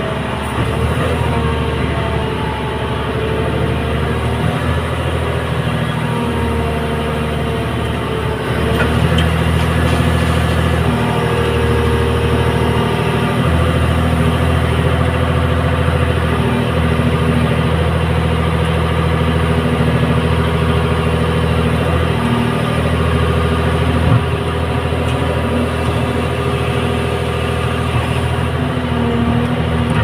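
Hyundai Robex 300LC excavator's diesel engine running steadily under hydraulic load as the boom and bucket work, getting louder about nine seconds in.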